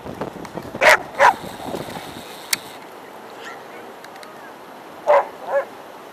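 A dog barking in two pairs: two quick barks about a second in, and two more about four seconds later.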